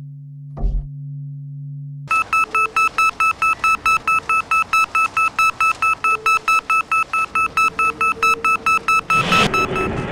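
A low droning hum with a single thump, then from about two seconds in a fast, even train of high electronic beeps, about four a second, ending in a swell of noise near the end.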